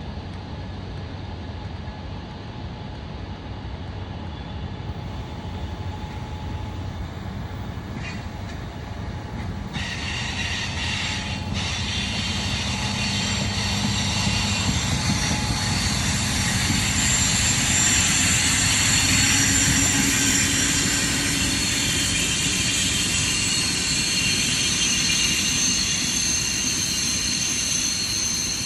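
A train rolling by, growing steadily louder to a peak about two-thirds of the way through, with high-pitched wheel squeal over the running noise.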